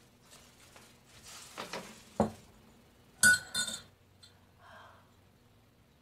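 Handling sounds of a coffee cup just after it was knocked over: a soft rustle, a sharp knock, then two quick ringing clinks about a second later as the cup is handled or set down.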